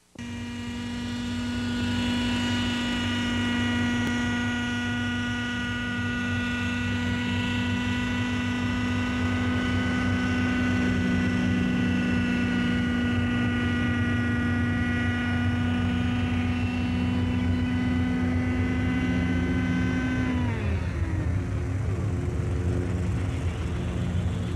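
RC model helicopter's small engine running at a steady high pitch, with the rotor pulsing underneath. About twenty seconds in the engine note drops sharply and settles at a lower steady note, the engine falling back toward idle as the helicopter comes down in an autorotation.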